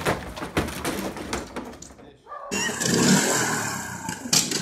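Knocks and clatter of a wooden wardrobe that has just crashed to the ground, then, after a short gap about two seconds in, a riding lawn mower's engine running steadily as it is driven across the grass.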